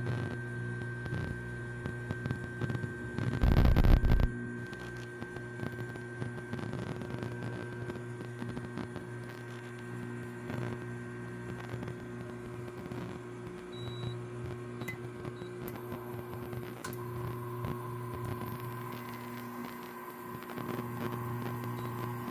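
Rinnai RBR-IGB310 hybrid induction cooktop running with a steady electrical hum and a faint high tone over it. A single thump comes about three and a half seconds in.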